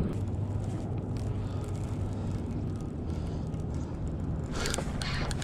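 Baitcasting reel being cranked against a hooked largemouth bass, over a steady low rumble. A few short scraping bursts come near the end.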